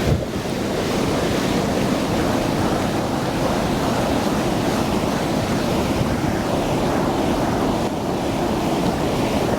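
Steady rush of flowing stream water, with wind buffeting the microphone. A brief bump comes right at the start.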